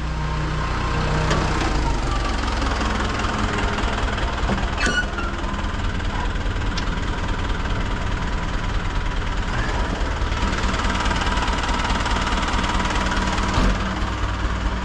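Hino rollback tow truck's diesel engine idling steadily with a fast, even clatter.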